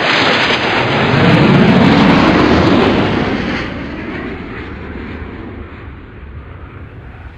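A loud rushing rumble that swells about two seconds in and then fades away, a pass-by sound effect like a vehicle or aircraft going past.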